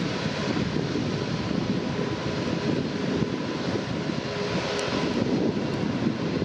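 Steady jet engine noise heard from inside an airliner cabin, a dense low rush that holds level throughout.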